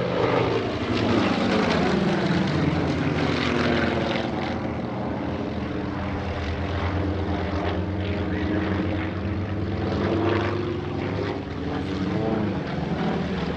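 Three Yakovlev Yak-52TW planes' nine-cylinder radial engines and propellers running together in a formation dive. The pitch drops over the first few seconds as they pass, then holds as a steady drone.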